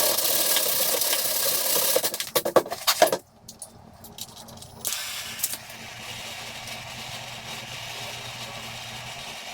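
Gas torch flame hissing steadily while plastic is melted into a hole in a plastic sled, with some rattling clicks just before it cuts off about three seconds in. A quieter steady hiss follows from about five seconds in.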